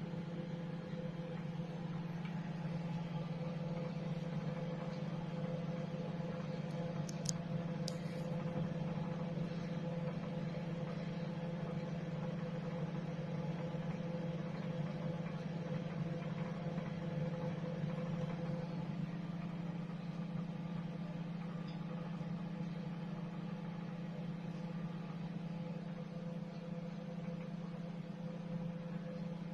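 Microwave oven running with a steady low hum while it heats food, with a couple of faint brief ticks about seven seconds in.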